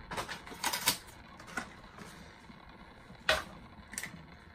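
Scattered sharp clicks and crackles of a plastic die-cast package being cracked open and handled, about six in all, the loudest a little over three seconds in.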